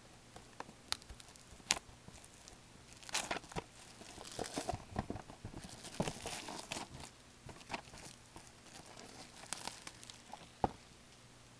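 Plastic wrapping being torn open and crinkled as a sealed box of trading cards is unwrapped and handled, with a few sharp clicks and taps of cardboard.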